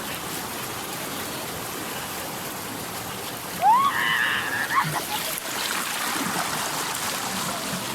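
Steady rush of waterfall and stream water. About three and a half seconds in, a person gives a short, rising yell lasting about a second.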